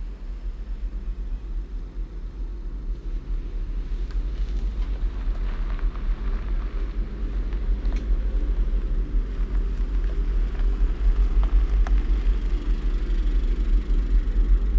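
A low rumble that grows gradually louder, with a few faint clicks over it.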